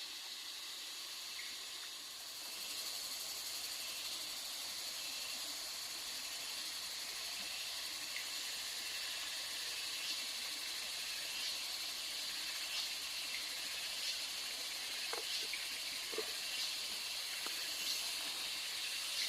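Steady high-pitched insect chorus of crickets and cicadas at dusk, with a few faint taps in the second half.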